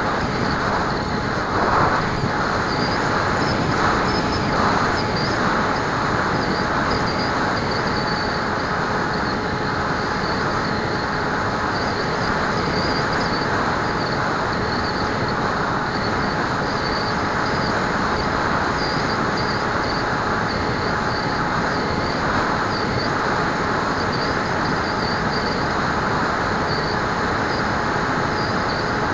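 Steady wind and airflow rushing over the onboard camera of a Bixler RC foam plane in flight, with the even hum of its electric motor and propeller. There is a brief louder rush about two seconds in.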